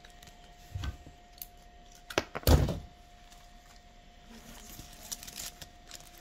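Two knocks and then one loud thump about two and a half seconds in, as the garland is handled on the table. Light crackling rustle of stiff fir and holly foliage near the end as a gloved hand works in it.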